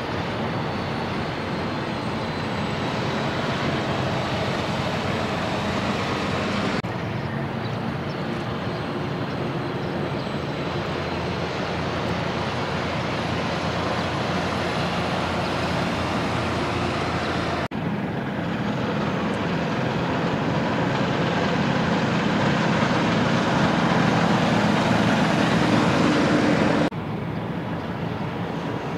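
Semi-trucks driving past on the road: diesel engines running and tyres rolling on pavement as a steady traffic noise. The sound jumps abruptly three times, and it is loudest shortly before the last jump.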